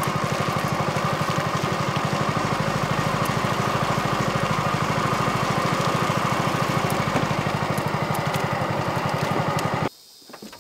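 Small single-cylinder gasoline mud-motor engine, about 6.5 horsepower, running steadily with an even, rapid firing pulse while pushing the boat, then shut off abruptly near the end.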